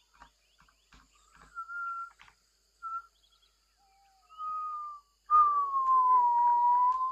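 Whistling: a few short whistled notes, then a long, louder whistled note from about five seconds in that slides slightly down in pitch and holds.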